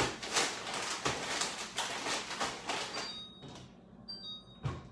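Rustling and handling noise for the first few seconds, then a refrigerator's door-open alarm beeping high, short tones about once a second, the signal that the fridge door has been left open.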